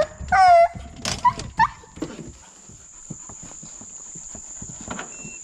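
A bluetick hound gives two short high cries in the first couple of seconds, among sharp knocks and rattles from the aluminium dog box in the pickup bed as the dogs are loaded. Faint knocks follow.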